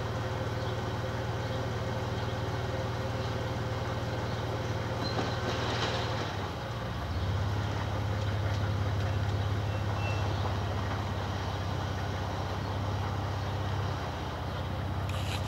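Engine of a Dodge monster truck idling with a steady low rumble, dipping briefly and settling slightly louder about six to seven seconds in.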